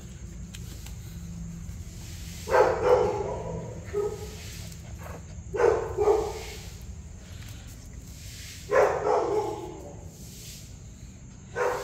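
A small dog barking in short bursts of one or two barks, a burst about every three seconds.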